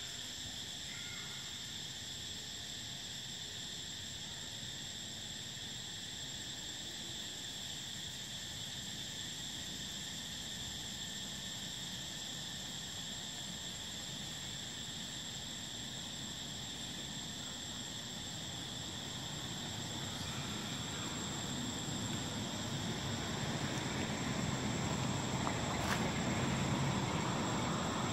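Steady high-pitched buzzing of insects in two even, unbroken tones. A low rushing noise grows louder in the second half.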